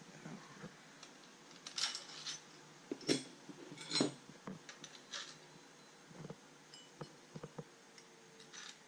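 Scattered metallic clicks and clinks as a steel oscillating-tool blade is handled and fitted onto the tool-less blade mount of a Makita XMT03Z cordless multi-tool. The sharpest clicks come a little under two, about three and about four seconds in.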